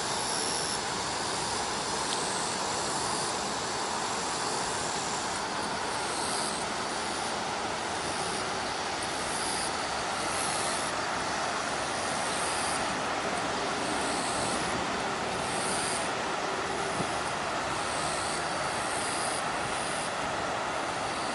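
Muddy river running high after a flood, water rushing steadily over rocks and stepping stones. A high-pitched buzz switches on and off over it every second or so.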